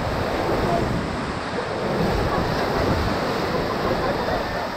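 Whitewater rapid rushing and churning around a raft, a steady noise, with wind rumbling on the microphone.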